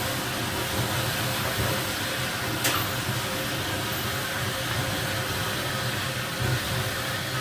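Steady hiss of superheated steam jetting from a closed-heater sauna stove with its steam valve open, over a low rumble. A single sharp click comes a little under three seconds in.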